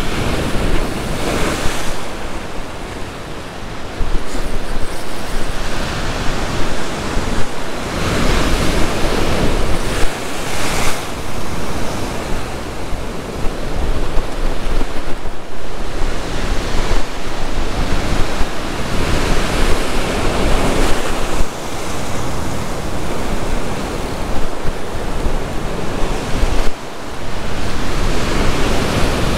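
Ocean surf breaking and washing over a rock ledge, swelling and easing every few seconds, with wind rumbling on the microphone.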